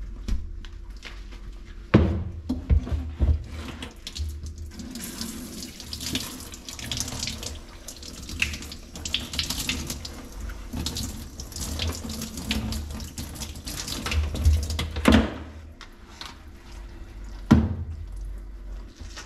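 Water from a handheld shower sprayer hisses onto a wet dog's coat in a grooming tub, starting a few seconds in and stopping about three-quarters of the way through. A few sharp knocks are heard, the loudest near the start.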